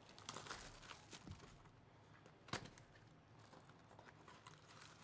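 Faint crinkling of plastic shrink wrap and light cardboard clicks as a sealed trading-card hobby box is unwrapped and its lid opened, with one sharper tick about two and a half seconds in.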